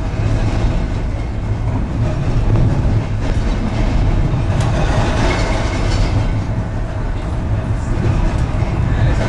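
Blackpool tram running along its track: a steady low rumble of the wheels on the rails, with a faint motor whine and a few light clicks.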